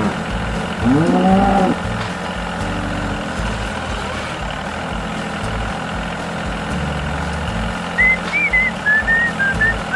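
Cartoon soundtrack: a steady vehicle-like hum over a repeating low beat, with a single cow-like moo about a second in and a whistled tune of short high notes starting near the end.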